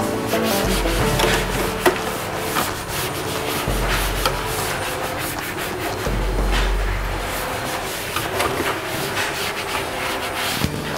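Cloth rubbing and wiping across the plastic side covers of a Canon imageRUNNER Advance photocopier in quick, irregular scrubbing strokes.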